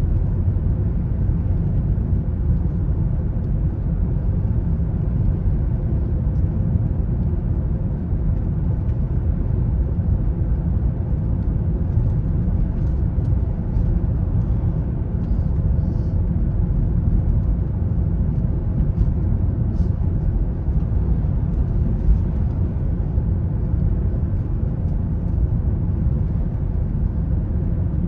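A car being driven: a steady, low rumble of road and engine noise.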